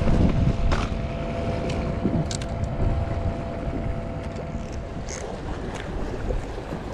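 Wind buffeting the microphone on an open seaside breakwater, a steady low rumble, with a faint steady hum underneath that stops about five seconds in.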